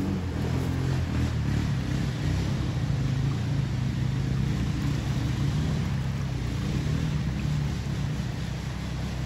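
Honda Rubicon 520 ATV's engine running steadily at a low rumble, with the hiss of fast-flowing floodwater behind it.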